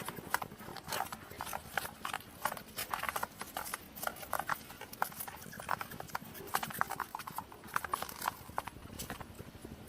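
Hedgehog making rapid, irregular clicking sounds, many short clicks in quick succession.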